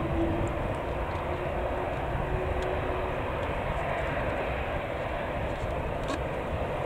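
Steady rumble of an Airbus A330-243's Rolls-Royce Trent 700 turbofans as the airliner rolls along the runway after landing.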